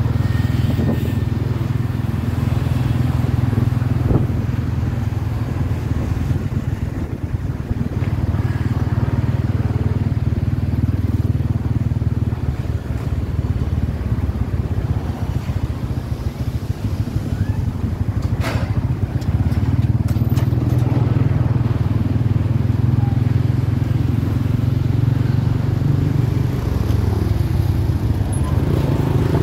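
Motorcycle taxi riding through town traffic, heard from the pillion seat: a steady low engine and road rumble. It eases a little in the middle and grows again after about two-thirds of the way through.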